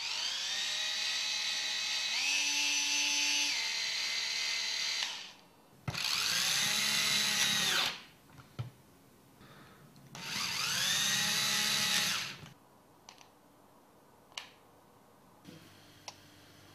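CEL Li-Ion MINIdriver cordless screwdriver motor whining in three runs of a few seconds each, each rising in pitch as it spins up. During the first run the pitch steps up about two seconds in and drops back a second later, as the dual-speed trigger changes speed. Light clicks follow the runs.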